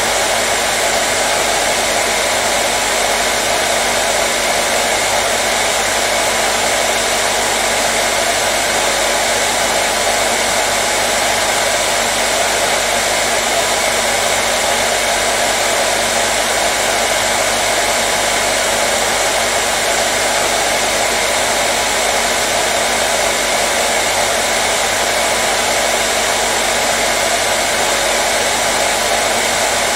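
Hairdryer running steadily, a constant airy whoosh with a faint motor hum and no change in speed, played as white noise to soothe a colicky baby.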